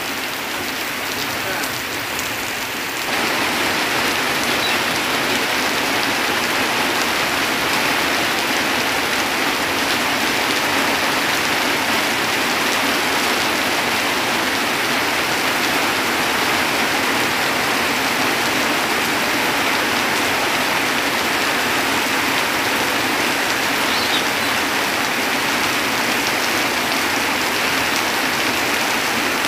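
Heavy rain falling steadily on a tin roof and surrounding trees, a dense even hiss that grows louder about three seconds in.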